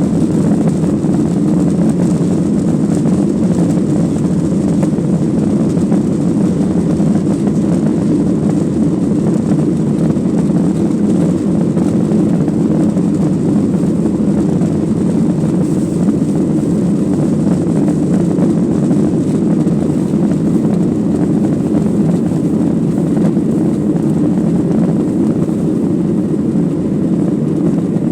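Steady cabin noise of a Boeing 737-900ER heard from a rear seat: its two CFM56-7B turbofan engines and the rushing air make an even low rumble, with a faint high-pitched steady tone above it.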